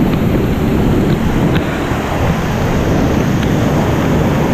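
Whitewater rushing over rock drops in a small mountain creek, a loud, steady noise with no clear pitch.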